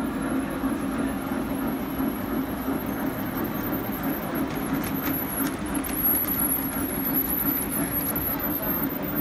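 G scale model train running along its track: a steady whirr and rumble of the motor and wheels on the rails, with a few light clicks about five seconds in.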